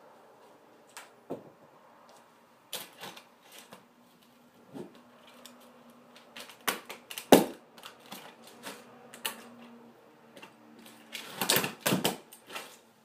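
High-heeled shoes stepping among scattered plastic toys: irregular sharp clicks and clacks, the loudest about seven seconds in and a quick run of them near the end.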